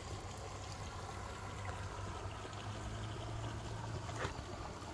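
Steady sound of running, trickling water, with one short snap about four seconds in.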